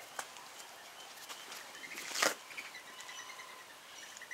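Low-level background with a few faint clicks and one brief scraping knock about two seconds in.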